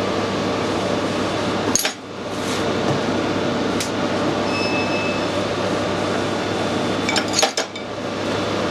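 Metal lathe running with a steady hum while turning brass, broken twice by brief metallic clinks.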